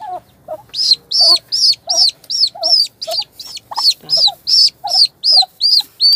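Turkey poults peeping loudly and insistently, a rapid train of high, arched peeps about two to three a second, with fainter lower calls between. Such nonstop peeping is what the keeper takes as the sign that the poults need deworming.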